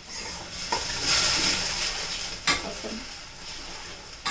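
Masala frying in ghee in a kadhai while being stirred: a steady sizzle with two sharp scrapes of the utensil against the pan.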